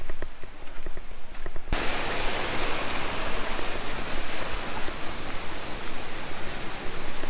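Light footsteps for the first second and a half or so, then the steady rushing of a waterfall cuts in suddenly and holds.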